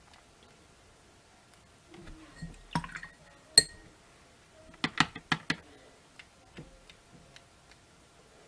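A paintbrush tapping and clinking against a glass water jar. There are a few scattered light taps, one sharp clink about three and a half seconds in, and a quick run of clicks around five seconds in.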